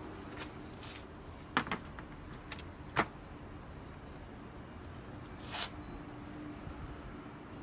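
Metal sockets from a socket set being handled in their plastic case: a few sharp clicks and clinks, the loudest about three seconds in, and a softer scrape near the end.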